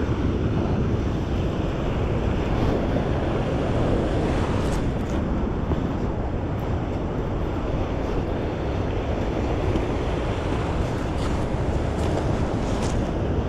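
Steady rushing of flowing river water, mixed with wind buffeting the microphone.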